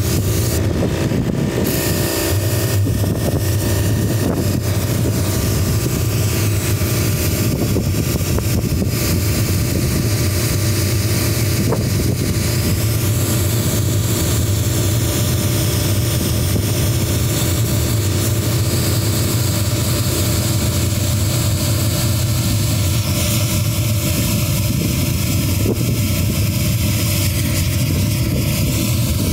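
Mytee Escape portable carpet extractor and its diesel water heater running together at high pressure: a steady, loud machine noise with a low hum underneath.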